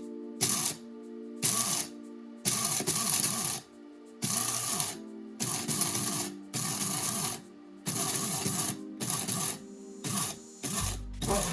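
Electric coffee grinder grinding whole coffee beans in short pulses, about a dozen bursts of half a second to a second each, switched on and off in quick succession.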